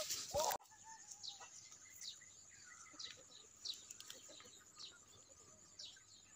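Faint bird chirps: short, high notes falling in pitch, repeated about once a second over a steady high-pitched whine.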